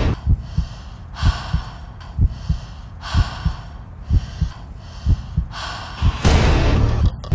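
A woman's heavy, frightened breathing, about one breath a second, with a longer, louder breath near the end, over a low rhythmic thumping like a heartbeat.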